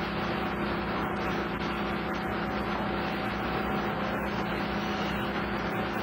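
Sawmill machinery running with a large circular head saw spinning: a steady mechanical drone with a constant hum.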